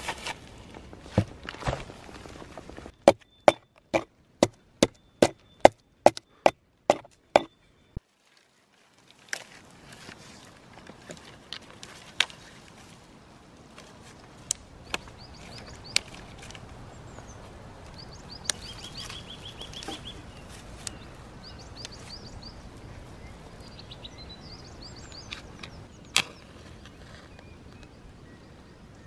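Wood being chopped: a quick run of about a dozen sharp, loud wooden blows, roughly two a second, splitting up a rotten tree stump. After a short break, quiet outdoor ambience with faint bird chirps and a few small clicks.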